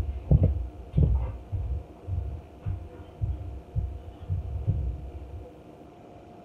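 Footsteps walking away: low thuds about two a second that grow fainter and stop near the end, over a faint steady hum.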